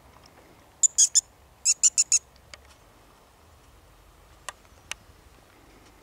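Short, high-pitched, mouse-like squeaks made by mouth as a lure to draw in a barn owl: three quick squeaks about a second in, then four more just before two seconds in. Two faint ticks follow later.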